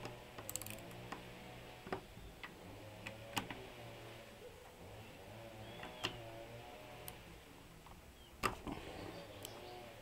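Scattered light metallic clicks and taps of a socket wrench working the cylinder-head bolts of a Villa 2.5 HP stationary engine, a few seconds apart, over a faint steady hum.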